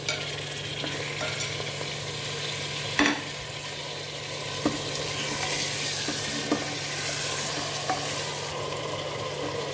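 Goat meat pieces sizzling in hot oil with onions and ginger-garlic paste in a pressure cooker as they are browned, stirred with a wooden spatula that knocks against the pot a few times, loudest about three seconds in.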